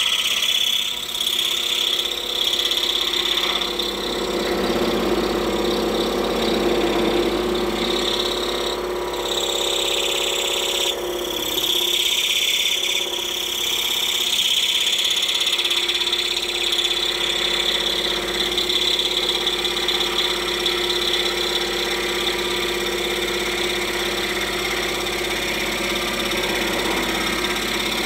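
Scroll saw running steadily, its number 7 precision-ground-tooth blade moving up and down and slowly cutting an interior compound cut through a block of wood.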